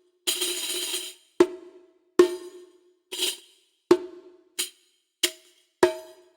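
Sampled Middle Eastern percussion from Native Instruments' Discovery Series Middle East library, played as single strikes about once a second. Each hit rings at the same pitch and dies away. Near the start there is a longer jingly, tambourine-like hit.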